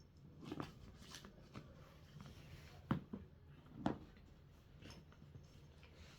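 A puppy wrestling with a floor cushion, making scattered soft thumps and scuffles. The two sharpest knocks come about three and four seconds in.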